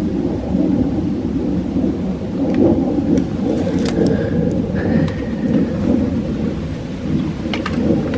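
Wind buffeting the microphone: a loud, gusting low rumble, with a few faint clicks over it.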